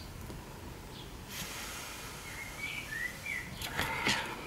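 Small birds chirping in the background in short rising and falling chirps. About a second and a half in a faint steady hiss joins them, and near the end a few light clicks and knocks come from handling the work on the bench.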